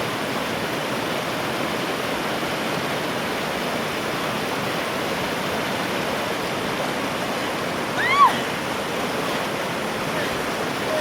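Mountain river water rushing steadily. About eight seconds in, a brief high-pitched call rises and falls over it.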